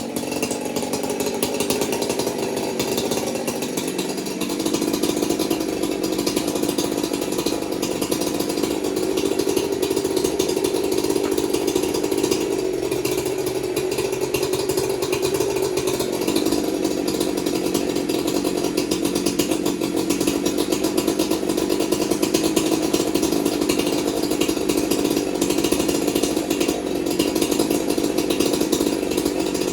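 Freshly rebuilt Jonsered 2065 two-stroke chainsaw engine running steadily after its first start-up. Its note shifts in pitch about four seconds in and again about sixteen seconds in.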